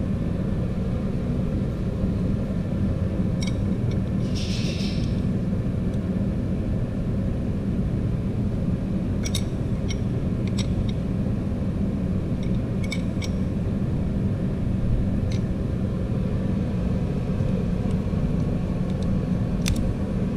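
Steady low rumble of a shop heater running, with a few light, scattered clicks and taps of hand tools on the valve train during a valve lash adjustment. There is a brief hiss about four seconds in.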